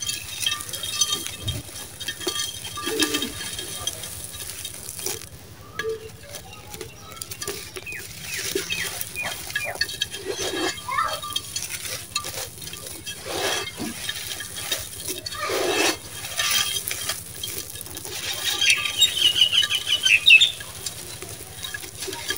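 Hands crumbling and crushing dry, gritty sand-cement chunks, the grains crunching and pattering down into a clay pot. Irregular crunching throughout, loudest in a stretch of rapid gritty crackling near the end.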